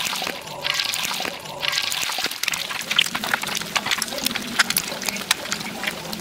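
Egg deep-frying in plenty of hot oil in a wok, just after going in: a loud sizzle with many sharp crackles and pops from the spattering oil. The sizzle comes in surges for the first couple of seconds, then settles into a denser, steadier crackle.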